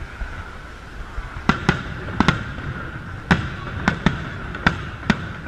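Aerial fireworks shells bursting overhead: a quick run of about nine sharp bangs, some in close pairs, starting about a second and a half in.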